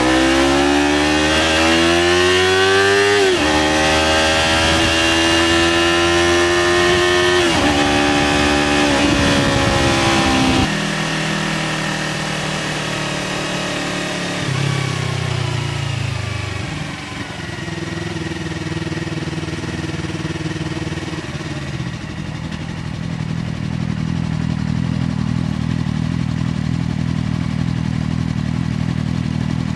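Yamaha R3 parallel-twin engine through an SC Project aftermarket exhaust, accelerating with three rising runs of revs, each broken by an upshift. About ten seconds in it comes off the throttle and the revs fall away, then it settles to a steady low running for the last dozen seconds.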